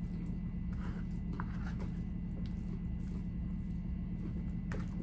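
Close-up chewing and wet mouth smacks while eating a soft steak-and-rice burrito bowl, with scattered small clicks and scrapes of a plastic utensil scooping in a paper bowl. A steady low hum runs underneath.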